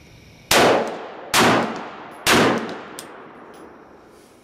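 Three rifle shots from a 7.5-inch-barrelled AR-15 in 5.56 mm fitted with a Rainier Arms mini single-baffle compensator, a bit under a second apart. Each shot rings out in a long echo that fades over about a second.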